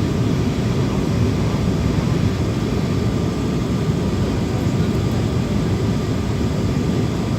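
Steady cabin noise of a Boeing 737-800 in flight: a low, even rush of airflow and CFM56 engine drone, with a faint steady whine above it.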